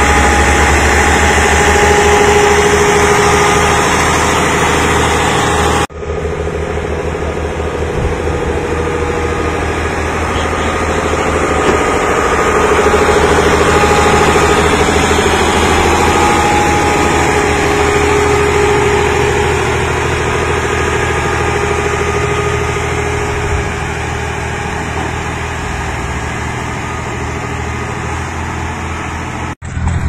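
Diesel engine of a single-drum road roller running close by, low and steady.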